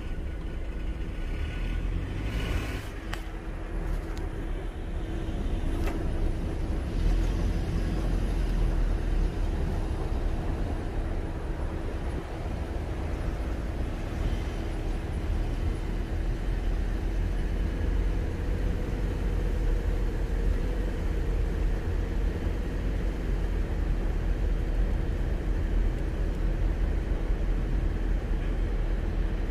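A car driving along, with a steady low rumble of road and engine noise and a brief rattle about two and a half seconds in.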